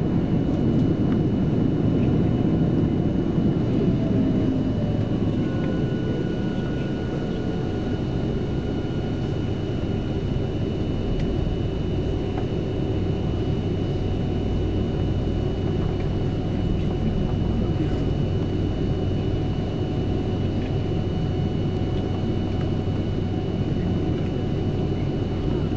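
Cabin noise of an Airbus A330-343 taxiing, heard from inside the cabin: a steady low rumble from its Rolls-Royce Trent 700 engines at low thrust, with a thin steady whine above it.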